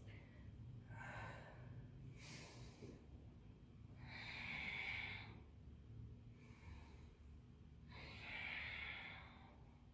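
A woman breathing audibly in time with her yoga movements: about five soft, hissing breaths. The longest and loudest come about four seconds in and again near the end.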